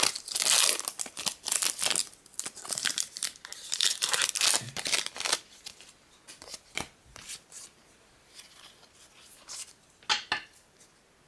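Foil wrapper of a Pokémon XY booster pack being torn open and crinkled, dense and crackly for the first five seconds or so. After that come scattered short clicks and rustles as the cards are handled, which stop about ten and a half seconds in.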